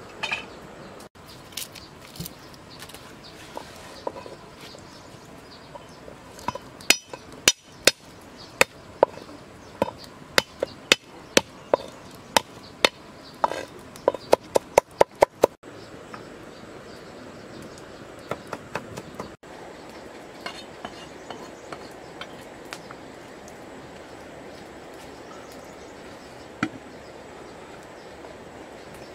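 Knife chopping garlic on a wooden chopping board: sharp single knocks at first, then a fast run of chops, about five a second, around the middle, and a few more knocks after.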